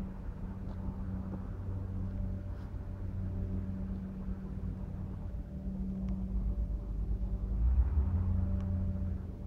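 A heavy truck's diesel engine idling steadily with a low hum, and a louder low rumble swelling briefly about three-quarters of the way through.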